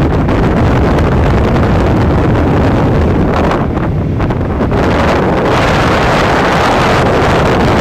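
Loud wind buffeting the microphone on a moving small boat, a steady rumbling rush that swells and eases, with the boat's running noise under it.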